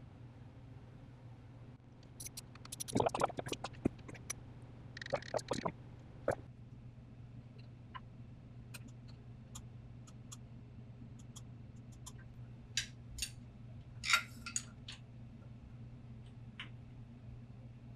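Small metal clicks and taps of hand tools working on the engine: a quick run of clicks about three seconds in, another cluster a couple of seconds later, then scattered single ticks, over a faint steady hum.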